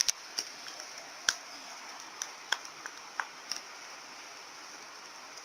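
A few scattered small clicks and pops from slime being handled, over a faint steady hiss.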